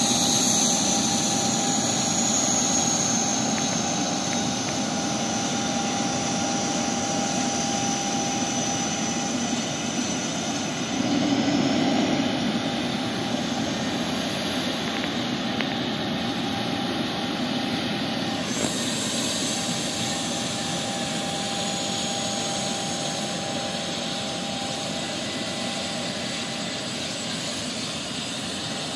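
Jet engines running on an airport apron: a steady rushing roar with a high turbine whine that slowly drops in pitch over the first ten seconds, a steady lower tone beneath it, and a brief swell in the roar about eleven seconds in.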